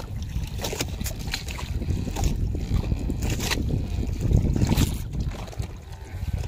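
Wind buffeting the microphone as an uneven low rumble, with scattered light knocks and rustles from a fisherman pulling in a handline by hand.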